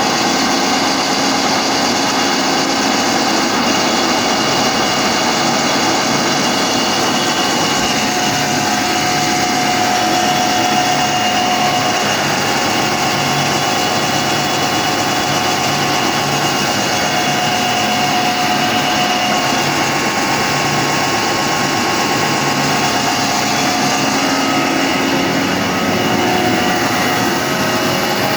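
Atlas Copco GAe22 rotary screw air compressor running steadily, a loud machine whine made of several steady tones over a low hum that pulses about once a second; it is the bad, abnormal noise the owner is showing.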